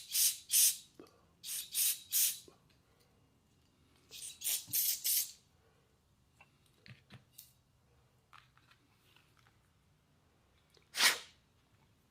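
Short bursts of pressurised spray hissing, in quick groups of three or four, then a single longer burst near the end, with light clicks and taps between, typical of blowing out or spraying carburetor parts during a rebuild.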